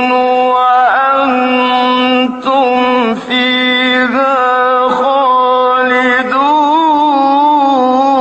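A male Quran reciter's voice chanting in the melodic mujawwad style, holding long ornamented notes at a steady pitch with a few short breaks.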